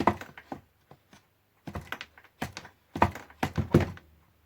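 Irregular clicks, knocks and thunks from working at a Roberts R717 radio's case, pushing and prying at a stuck part that won't come out. The loudest cluster of knocks comes about three seconds in.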